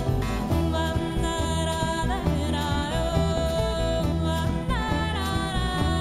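Live band playing a slow passage with no words: acoustic guitar and a snare drum swept with wire brushes, under a long held melody line that slides up between notes twice.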